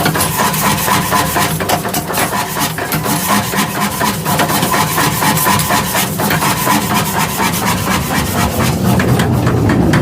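Workshop machinery running steadily, with a fast, continuous train of knocks and a steady ringing tone above it.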